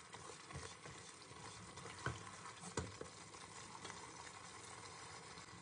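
Faint sizzling and bubbling of thick tomato sauce simmering in a pot, stirred with a wooden spoon. Two sharp knocks, about two seconds in and just under three seconds in.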